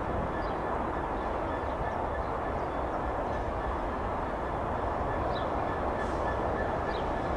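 Freight train wagons rolling past, a steady rumble of wheels on the rails with a faint steady high whine.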